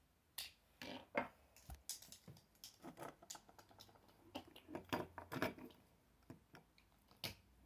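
Irregular small clicks and taps of a Beyblade spinning top's plastic and metal parts being handled and pressed together while a stubborn top is forced into assembly.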